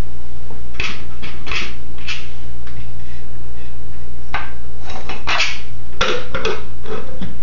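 Plastic cups, bowls and a lid clattering and tapping as a toddler handles them on a vinyl floor: a cluster of knocks about a second in, then more from about four and a half seconds to near the end. A steady low hum runs underneath.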